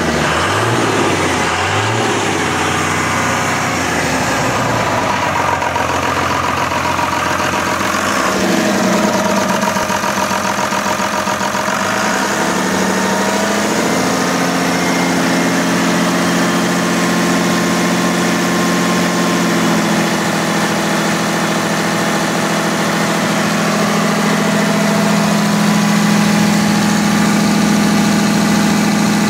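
2002 Dodge Ram's 5.9 L 24-valve Cummins inline-six turbo diesel idling steadily. Its tone shifts for a few seconds before the idle settles.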